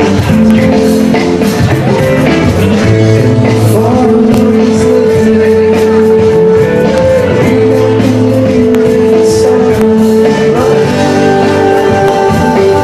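A recorded song playing loudly and steadily: a singer over backing instruments.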